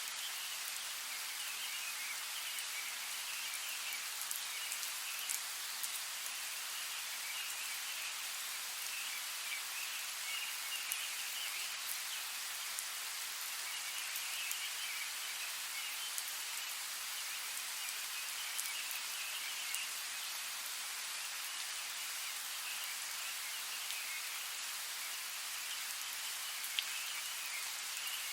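Steady rainfall on forest foliage, a constant hiss dotted with small drop ticks. A faint high chirring comes and goes in the background every couple of seconds.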